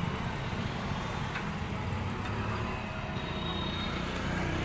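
Steady low rumble of a vehicle engine idling nearby, with a faint clink about a second and a half in.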